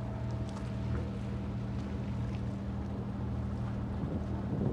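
A sailing yacht's inboard engine running steadily while motoring, a low drone, over a faint hiss.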